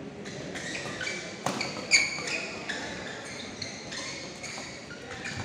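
Badminton rally on an indoor court: several sharp racket hits on the shuttlecock, the loudest about two seconds in, with shoes squeaking on the court floor.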